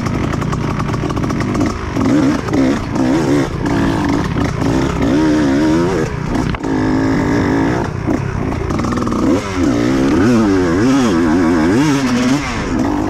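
Two-stroke Kawasaki Ninja motorcycle engine being ridden, revving up and down again and again, its pitch rising and falling in quick waves, steadier at first.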